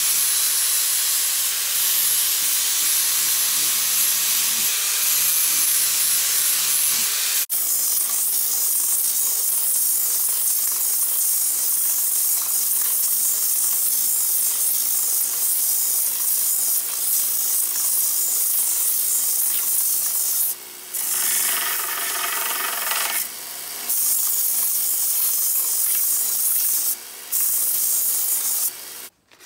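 Angle grinder with a flap disc grinding the knife's handle, then, after a sudden change about seven seconds in, a small bench belt sander running with a handle piece held against the belt. The sanding hiss drops away briefly a few times in the second half.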